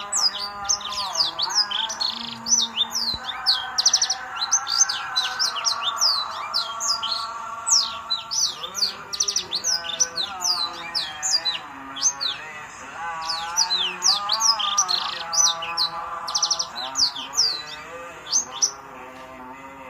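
Prenjak (prinia) singing rapid runs of sharp, high, down-slurred chirps without pause. Underneath runs a lower, sustained, wavering tone.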